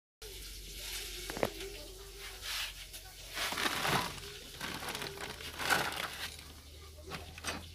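Plastic courier mailer bags rustling and crinkling as a hand rummages through them, in irregular swells with a few sharp clicks.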